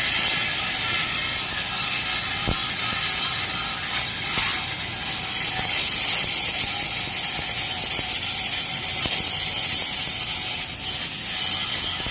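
Flux-cored arc welding: the arc crackles and sizzles steadily and continuously.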